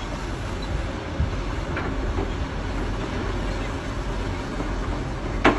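Excavator's diesel engine running steadily while its hydraulic shears crush concrete, with scattered cracks and knocks and one sharp, loud crack near the end.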